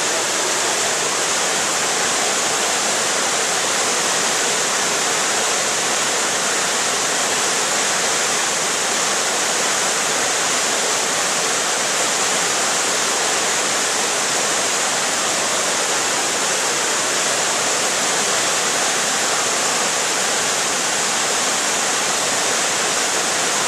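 Steady rushing of falling water, an even hiss that does not change.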